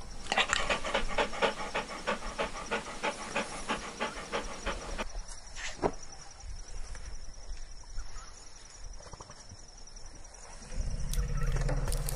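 A dog panting quickly and evenly, about three breaths a second, for the first five seconds. After that it is quieter, with a single click, and a low steady hum comes in about a second before the end.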